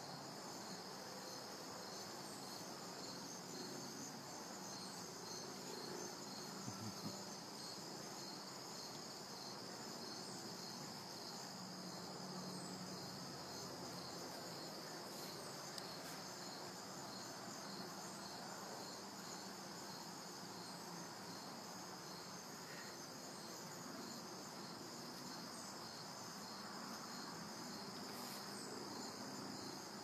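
Crickets chirping in a steady, high-pitched, evenly pulsing chorus.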